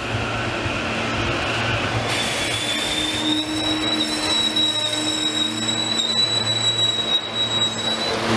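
SEPTA Silverliner V electric multiple-unit train rolling by with a low steady hum. About two seconds in, a high-pitched wheel squeal starts, rises slightly at first, then holds steady until just before the end.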